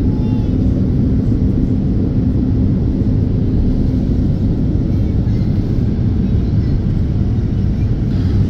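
Airliner cabin noise on approach: a steady low rumble of the jet engines and airflow heard from inside the cabin.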